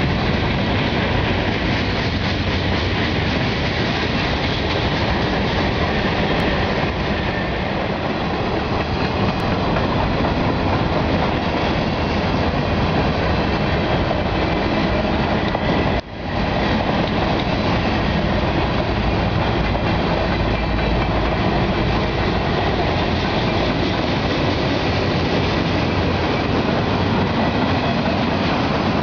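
Freight cars of a mixed manifest train rolling past close by: a loud, steady rumble and clatter of steel wheels on the rails. There is one brief dropout about sixteen seconds in.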